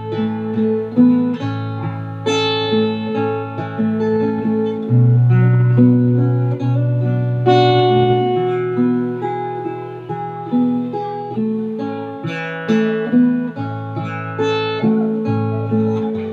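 Instrumental break of a slow ballad: acoustic guitar playing plucked and strummed chords over held bass notes.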